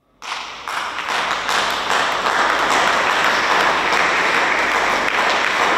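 Congregation applauding: many hands clapping together, starting suddenly, swelling over the first second or so and then holding steady.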